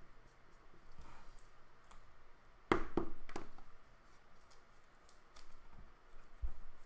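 Hands handling trading cards and a hard plastic card holder on a table: light rustling and small clicks, with a quick run of three sharp plastic clicks about three seconds in.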